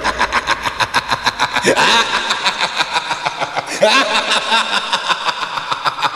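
Electronic background music with a fast, steady beat and a few short swooping, voice-like sounds.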